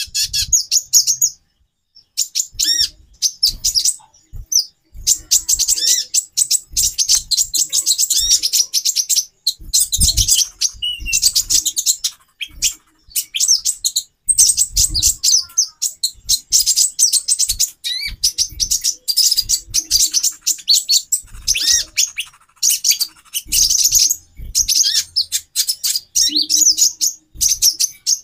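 Several female konin (kolibri ninja) birds chirping together in rapid, high-pitched twittering runs with only brief pauses. It is a female chorus of the kind played to stir male konin into breeding condition and get them singing.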